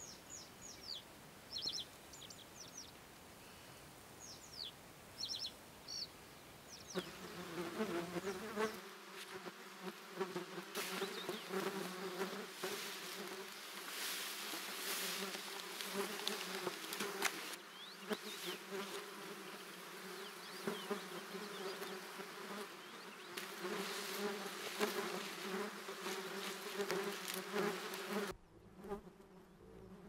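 A few short, high chirping calls of small birds, then from about seven seconds in the dense, steady buzzing of a swarm of flying insects, with scattered sharp ticks; the buzzing drops away near the end.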